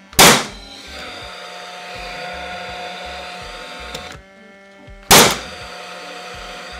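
Paslode IM350+ gas-powered framing nailer firing nails into timber twice, about five seconds apart, each shot a really loud, sharp crack. After each shot its combustion-chamber fan whirs steadily for a few seconds.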